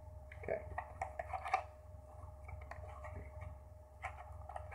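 Faint scraping and clicks of a small cardboard box being handled and opened, over a steady low hum.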